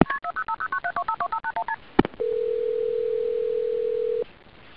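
Touch-tone telephone keypad dialing: a rapid string of about sixteen short tone pairs in under two seconds, then a click and a steady telephone line tone for about two seconds that cuts off abruptly, leaving faint line hiss.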